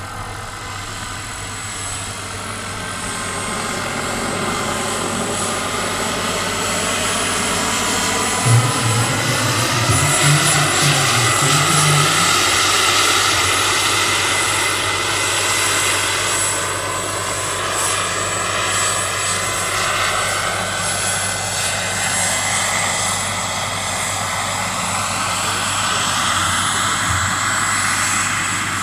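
Gas-turbine engine and rotor of a large-scale RC model Aérospatiale SA-315B Lama helicopter in flight: a steady high turbine whine over rotor noise, growing louder over the first ten seconds or so as it comes closer, its pitch drifting up and down as it manoeuvres down into a low hover.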